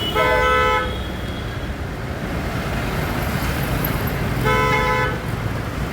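A vehicle horn sounds two short blasts about four seconds apart, each under a second long, over steady road traffic noise.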